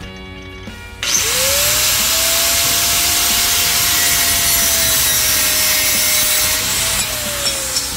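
Corded angle grinder starting about a second in, its motor whine rising quickly to speed, then grinding down the cut edge of a metal gate opening with a loud, steady hiss. Near the end the whine drops as the grinder winds down.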